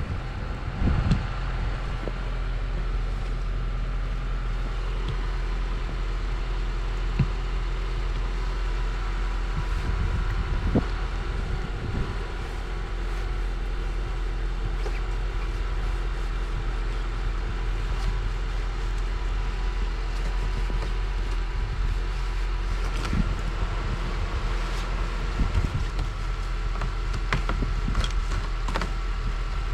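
Car engine idling steadily, with a few short knocks or scrapes now and then.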